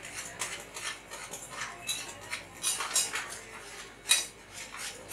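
Wire whisk stirring a dry mix of gram flour, rice flour and spices in a stainless steel bowl: irregular scraping strokes, with the wires brushing the flour and tapping the bowl's metal side. The loudest stroke comes about four seconds in.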